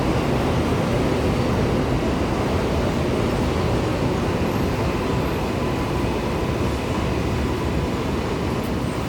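New York City subway train running past on the track, a steady noise of wheels and motors that eases slightly toward the end.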